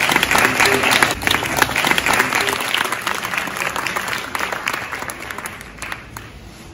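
Audience applauding, loud at first and fading out toward the end.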